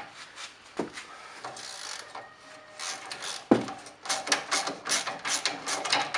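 Socket wrench on a suspension stabilizer link nut: scraping and small clicks, one sharp metallic knock about halfway through as the nut is broken loose, then quick ratcheting clicks as it is turned.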